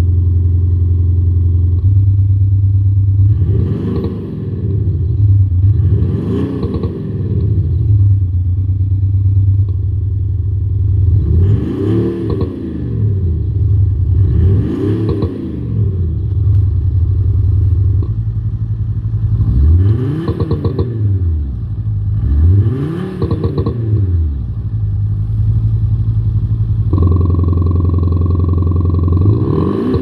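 Audi Q7 TDI with an aftermarket sound module playing a synthetic V8 exhaust note through its sound actuator: a steady idle drone, blipped six times in pairs, each rev rising and falling in pitch. The idle tone shifts in steps a few times between the revs.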